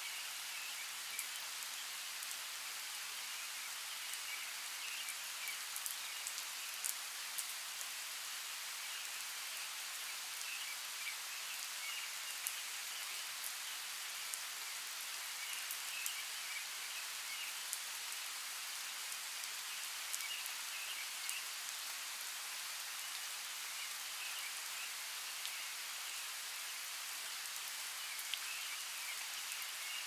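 Light rain falling steadily: an even hiss with many scattered sharp drop ticks.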